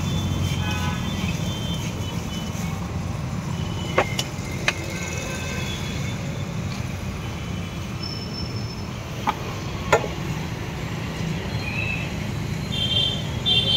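Steady low rumble of road traffic, with four sharp clicks: two about four seconds in and two about nine to ten seconds in.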